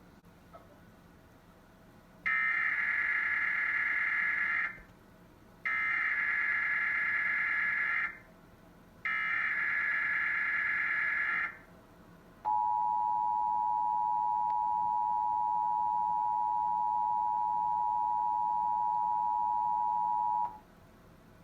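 Emergency Alert System Required Monthly Test signal relayed over a TV broadcast. Three SAME header data bursts, each about two and a half seconds with a short gap between, are followed by the steady two-tone attention signal (853 and 960 Hz) held for about eight seconds.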